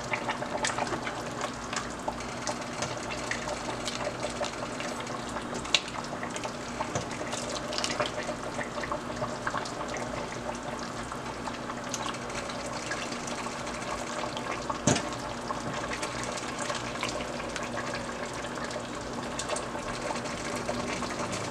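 Soup being ladled from a stainless steel pot into a glass dish: liquid pouring and splashing, with scattered clinks of the metal ladle against the pot and dish, over a steady low hum.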